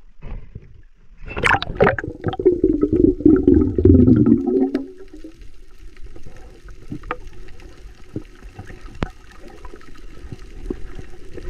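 Splashing and bubbling as the camera goes below the water's surface, loud for a few seconds, then muffled underwater ambience with scattered sharp clicks.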